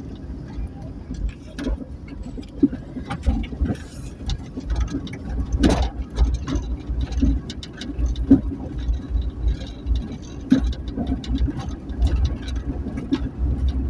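Motor vehicle on the move: a steady low engine and road rumble with scattered light knocks and rattles, the loudest about six seconds in.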